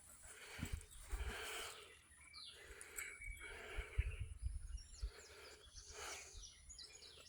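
Dog panting in soft, even puffs about once a second, with low thumps of footfalls and a few short bird chirps near the end.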